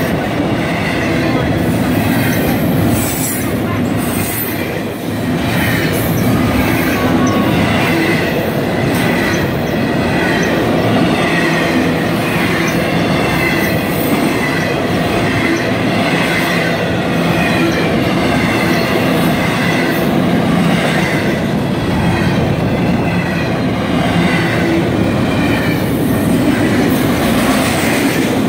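Intermodal freight train of double-stacked containers and trailers on well cars rolling past close by: a loud, steady rumble of wheels on rail, with wavering high-pitched wheel squeal over it.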